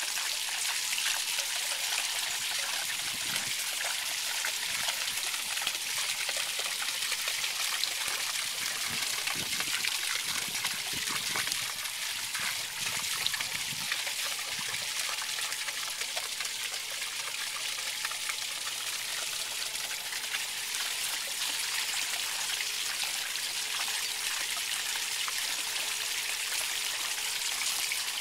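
Water trickling and splashing steadily down through the copper cups of a cup-style rain chain.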